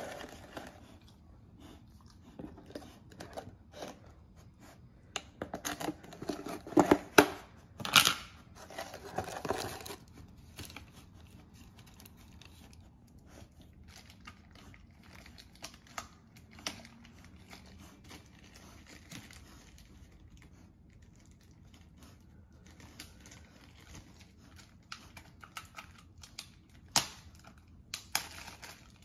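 Irregular crinkling and rustling with sharp crackles, loudest between about five and ten seconds in, then scattered quieter clicks and a brief burst near the end.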